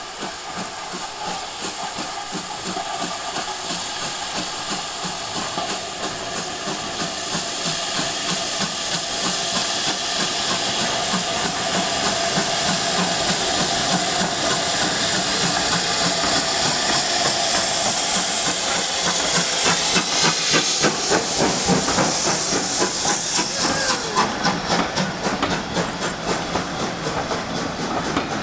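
Steam locomotive hissing loudly, the steam hiss building over about twenty seconds with a rapid rhythmic beat in the later part. Near the end the hiss cuts back sharply.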